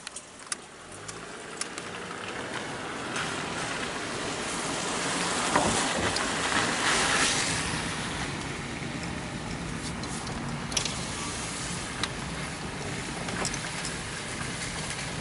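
Car driving on a wet road: tyre and engine noise that swells to a peak midway and then eases, with scattered sharp ticks like raindrops hitting the car.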